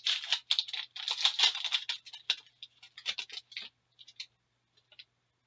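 A hockey card pack being opened by hand: rapid crinkling and scratching of the wrapper for about three and a half seconds, then a few light clicks as it settles.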